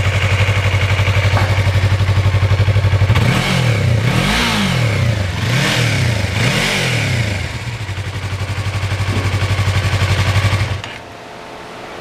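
2021 Yamaha MT-03's 321 cc parallel-twin engine idling, then revved up and down three times, settling back to a steady idle and shutting off about eleven seconds in.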